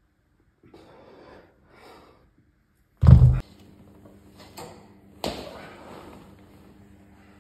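Gym weights: two short breaths during a set of dumbbell raises, then a heavy thud about three seconds in as weights hit the floor, followed two seconds later by a sharp metallic clank with a ringing tail from the cable machine's weight stack plates knocking together. A faint low steady hum runs underneath after the thud.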